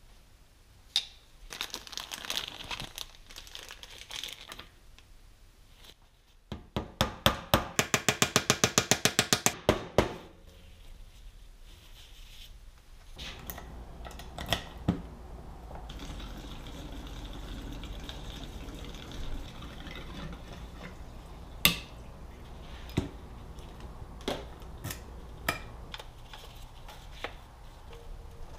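A ratchet wrench clicking rapidly for about three seconds, the loudest part, between stretches of tool and parts handling with scattered single clicks and knocks.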